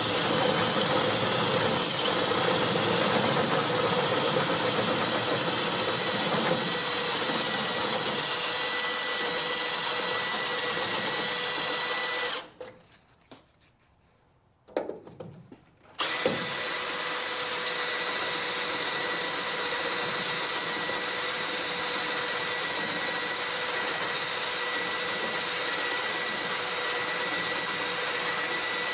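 Handheld power tool running steadily at high speed with a thin high whine, being used to free a stuck clutch pivot. It stops just before halfway, gives one brief burst, then runs steadily again.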